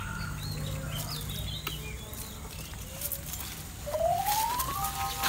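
Birds chirping and calling outdoors over a low steady hum. Near the end a smooth rising electronic tone climbs and settles into a held chord: an added comic sound effect.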